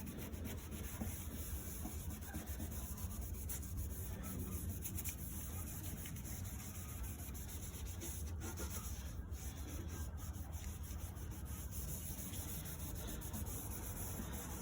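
Cleaning pad rubbing cleaning solution over a plastic car headlight lens: steady, continuous rubbing strokes, over a constant low rumble.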